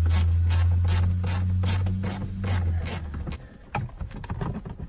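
Hand ratchet with a T20 Torx bit clicking quickly and evenly as it loosens the screws of a car's under-dash panel, a few clicks a second over a low hum, then stopping about three seconds in, leaving a few scattered knocks.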